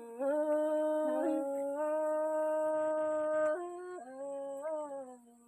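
A single unaccompanied voice singing a Thái folk song in long held notes, sliding up into each one. The voice steps up a little after about a second, holds one long note, drops around three and a half seconds in, and fades out with a short closing phrase near the end.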